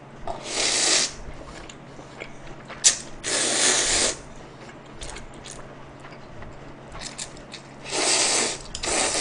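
A man slurping instant spicy mixed noodles up from chopsticks: four loud, hissing slurps under a second each, the last two close together near the end. Small wet chewing clicks fall between them.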